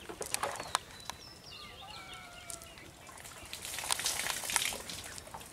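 Cast net rustling, with small clicks, as it is gathered and handled. Faint bird calls come in about a second and a half in.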